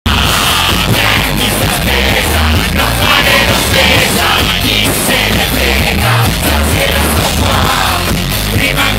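Live rock band playing loud, with drums, guitar and a singer, and a heavy, pulsing bass.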